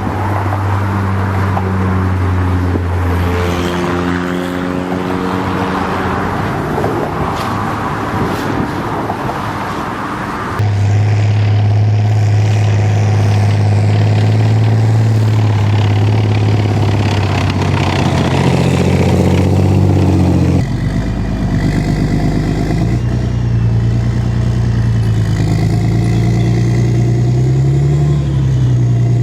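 Motor vehicle engines running in three successive clips, each a steady engine note, with abrupt cuts from one to the next about ten and twenty seconds in.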